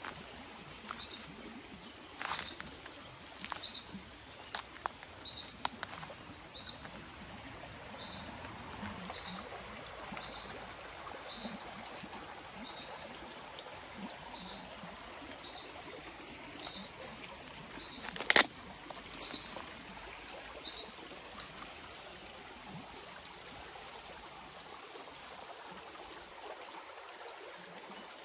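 Shallow rocky brook flowing and trickling over stones. A bird repeats a short high note about once a second until roughly two-thirds of the way through, and a few sharp clicks or snaps stand out, the loudest about 18 seconds in.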